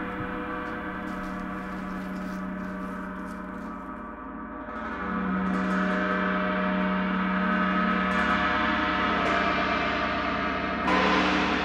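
Large hanging gong played with a soft mallet, ringing on continuously with a shimmering wash of overtones. It swells about five seconds in and is struck afresh near the end.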